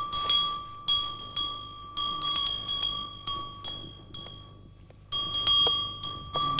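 A small Buddhist ritual handbell rung by a lama in a purification rite, struck again and again in quick, uneven strokes that each leave a bright, lingering ring. The ringing dies away about four seconds in and starts again a second later.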